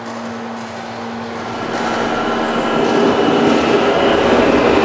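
New York City subway train running through the station, its rumble growing steadily louder over a few seconds, with a steady whine from the traction motors.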